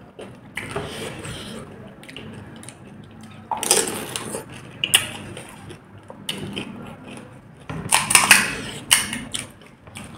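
Close-miked eating of pani puri: fingers dipping puris into a bowl of spiced water with splashing and dripping, and crisp shells crunching with wet chewing and slurping. It comes in several bursts, the loudest about four and about eight seconds in.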